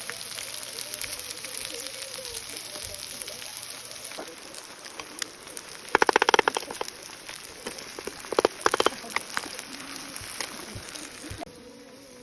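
Okonomiyaki frying on a hot cooking surface, with a steady sizzle. Two loud bursts of rapid clicking come about six and eight and a half seconds in. The sizzle turns quieter near the end.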